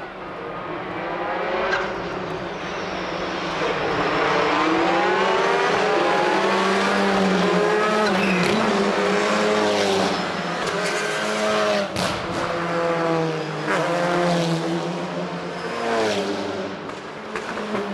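A pack of TCR touring cars with two-litre turbocharged four-cylinder engines accelerating hard past one after another. Several engine notes overlap, each rising through the gears, and the sound grows louder about four seconds in as the bunch closes in.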